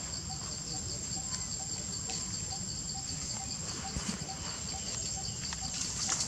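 Steady insect chorus: a constant high whine with a pulsing trill of about five pulses a second beneath it. Scattered light clicks and rustles from the macaques moving on dry leaves and handling fruit.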